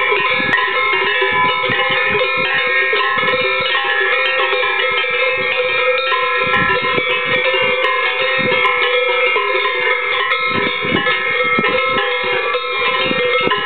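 A herd of cows' Swiss cowbells ringing all together, many bells at different pitches overlapping in a continuous jangle, with irregular clanks as the animals move.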